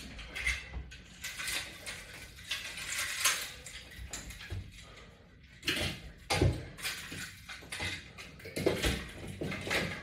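Irregular knocks and clattering of gym gear being handled: a wooden exercise pole unhooked from its resistance-band attachments and carried off, with rattling clinks from the attachment hardware. The loudest knocks come about six and a half and nine seconds in.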